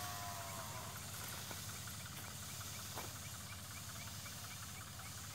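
Tractor engine running steadily under a continuous hiss of pressurized pesticide spray. A short falling tone sounds near the start, and a faint chirp repeats about three times a second in the second half.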